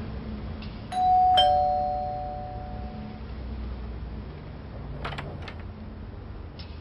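Two-tone doorbell chime: a high 'ding' then a lower 'dong' half a second later, both ringing out and fading over about two seconds. A few light clicks follow a few seconds later.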